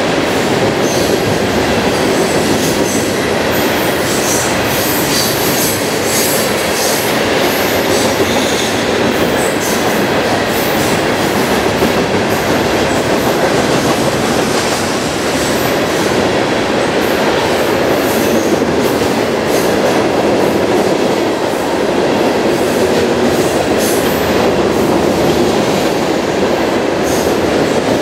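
Freight train of open-top hopper cars rolling past close by, a steady loud rumble of steel wheels on rail with short high-pitched wheel squeals now and then.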